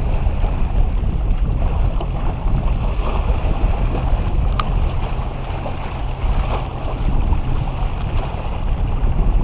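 Wind buffeting the microphone over small waves washing against shoreline rocks.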